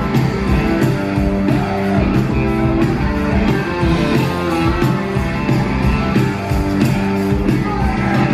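Rock band playing live and loud, with amplified electric guitar, bass and a drum kit.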